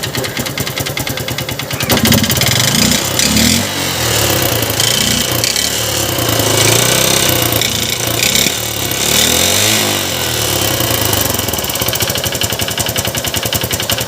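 Honda Unicorn's single-cylinder engine running with a rapid, even knocking beat. It is revved up and down a few times from about two seconds in, then settles back to idle near ten seconds. The mechanic says such a noise could come from the piston or the connecting rod.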